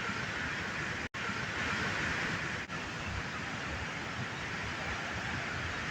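Steady rushing noise of floodwater pouring from the overflowing Kalawewa reservoir. It cuts out for an instant a little after a second in and dips briefly just before three seconds.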